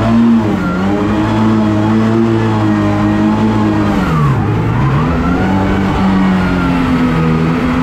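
Freshly rebuilt 454 big-block Chevy V8 of a 1977 Spectra jet boat with a Berkeley pump, running steadily at speed. About four seconds in the revs drop briefly and climb straight back up.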